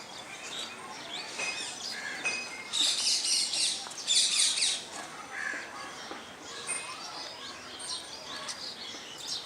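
Small birds chirping, with two louder bursts of quick chirps about three and four and a half seconds in.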